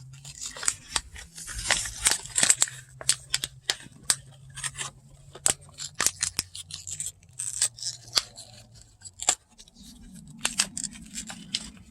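Irregular sharp clicks and rustling of small plastic parts being handled, with a faint low hum underneath.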